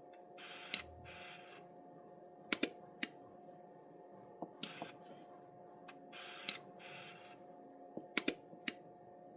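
Irregular sharp clicks of buttons being pressed on a Bobcat keyless start keypad panel, some in quick pairs and triples near the end, with soft rustles between them and a steady faint hum underneath.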